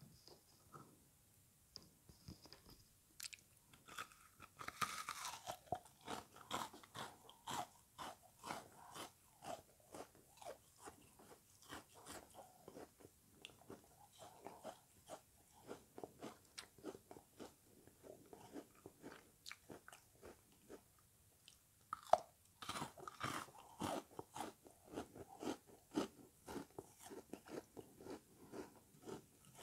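Chewing frozen lemony sponge: wet, icy crunches a couple of times a second. There is a denser run of crunching about four seconds in, and a sharp bite about 22 seconds in starts a fresh burst.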